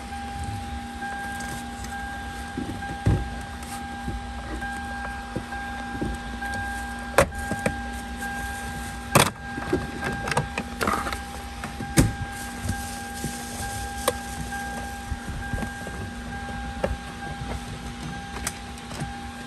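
Hand work on a car: scattered sharp clicks and knocks of tools and parts as bolts are undone, the strongest near the middle, over a steady hum.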